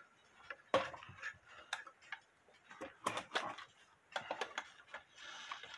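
Faint, irregular clicks and light rattles from a mechanical blacksmith cuckoo clock being handled, its works and chains clicking, with a soft rustle near the end.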